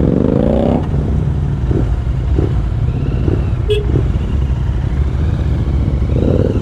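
Royal Enfield 650 parallel-twin motorcycle with aftermarket exhausts pulling away, its engine note rising through the first second, then running steadily at speed. A single short click comes about halfway through.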